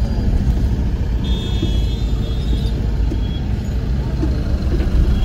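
Steady low rumble of a car's engine and road noise heard from inside the cabin while driving. A faint high-pitched whine comes in about a second in and lasts about a second and a half.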